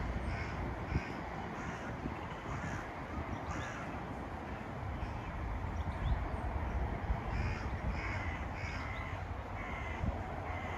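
Birds calling: short calls repeated in runs of several, over a steady low rumble.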